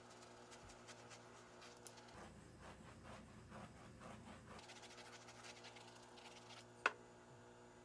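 Near silence: a faint steady hum of room tone with soft handling noises for a couple of seconds in the middle, and one sharp click near the end.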